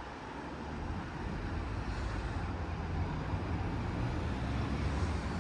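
Bus engine running close by, a low steady hum that grows slowly louder, over road traffic noise.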